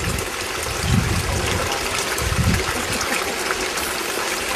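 Spring water streaming steadily out of a cave mouth, an even rushing sound, with two brief low rumbles about one and two and a half seconds in.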